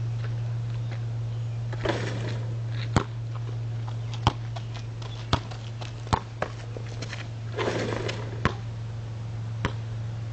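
A basketball hitting the rim and backboard of a portable hoop with a clatter about two seconds in, then a string of sharp bounces on asphalt, roughly one a second. A steady low hum runs underneath.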